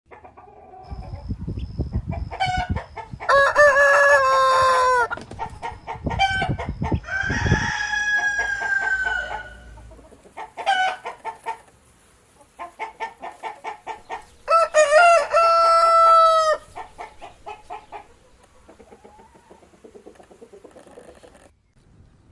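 Rooster crowing several long cock-a-doodle-doos, each falling at the end, among chickens clucking in quick runs of short calls. The last few seconds are quieter.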